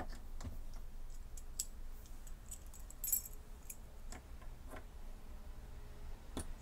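A bunch of keys jangling, with light metal clicks as a key is fitted into a brass doorknob lock. The sounds come as scattered clicks, the loudest jingle about three seconds in.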